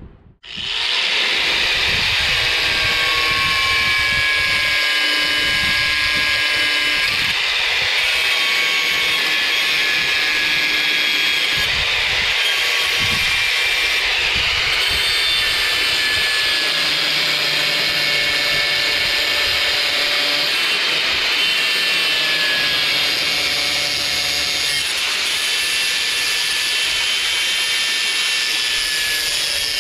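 Corded Porter-Cable angle grinder with a cutoff wheel starting up about half a second in, then running steadily with a high whine as it grinds the points off a lawnmower's blade adapter.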